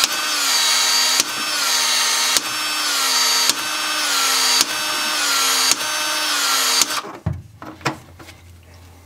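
Cordless ProPEX expansion tool running through repeated expansion strokes, about one a second, widening a PEX pipe end and its expansion ring while the head rotates; the motor's pitch sags and recovers on each stroke. It stops about seven seconds in.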